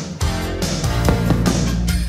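Rock music with guitar playing loudly.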